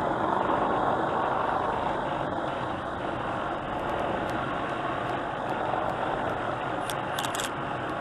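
Steady engine drone, with a few sharp metallic clinks from the steel shackle and stringing-block hardware being handled, clustered about seven seconds in.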